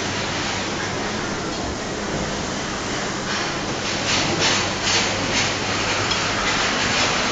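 Dining-room din at a buffet: a steady hubbub with plates and serving utensils clattering, and a run of clinks in the second half.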